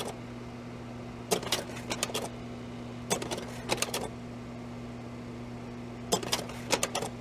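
Old-film style noise: a steady low hum under a faint hiss, broken by clusters of sharp crackling clicks about every two seconds.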